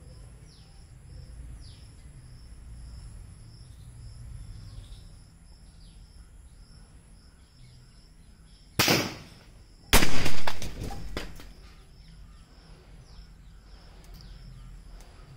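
Two bangs about a second apart, the second louder with a longer dying tail: a .22 rifle being fired at a deodorant aerosol can set on a burning can, and the can bursting in a blast. Birds chirp in the background.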